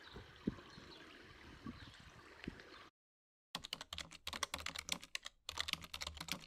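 Faint outdoor ambience with a few soft knocks. About three seconds in, the sound cuts off sharply, and then comes about three seconds of rapid computer-keyboard typing clicks.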